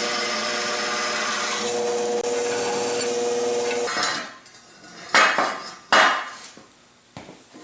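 A power tool running steadily on steel parts, its hum brightening about two seconds in, then stopping about four seconds in. It is followed by a few sharp metal clanks of steel pieces ringing.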